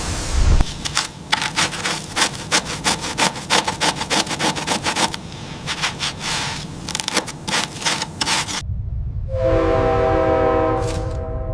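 Rapid, irregular scraping and rasping clicks for about eight seconds. Near the end they give way to a held chord of steady tones over a low rumble.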